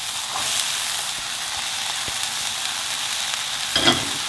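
Chopped vegetables sizzling in hot oil in a wok over a high gas flame, a steady hiss. A short clatter near the end as chopped peppers go into the pan.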